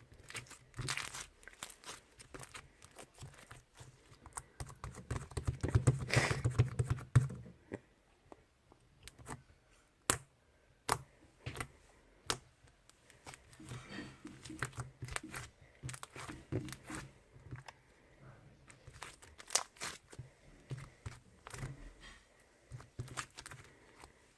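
Sticky slime being squeezed, pressed and stretched by hand, giving many small sticky clicks and pops. About five to seven seconds in comes a denser, louder stretch of crackling and squelching.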